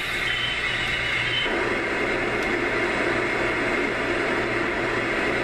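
A Homedics SoundSpa clock radio's speaker plays its rainforest soothing sound, then switches about a second and a half in to its fan sound: a steady rushing noise with a low hum.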